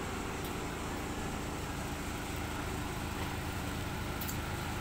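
Steady low rumble of an engine idling, holding an even level throughout.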